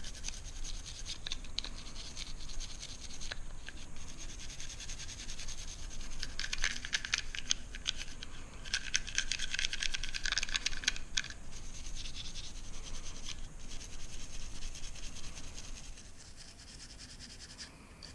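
Toothbrush bristles scrubbing a pistol part, a rapid back-and-forth scratching as solvent and fouling are brushed off. It is loudest in two stretches around the middle and softens near the end.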